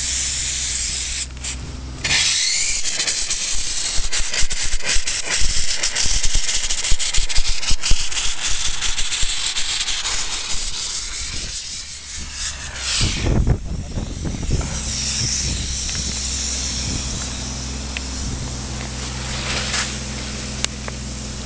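Vapor-blasting gun hissing as it sprays a water-and-abrasive slurry onto a Honda motorcycle engine casing, over a steady engine hum. From about two seconds in until around twelve seconds the spray turns into a louder, crackling spatter, with a brief low rush about a second after it eases.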